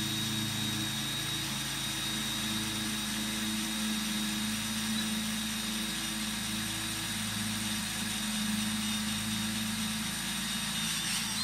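Power drill running steadily as it bores a hole all the way through a Trex composite deck board.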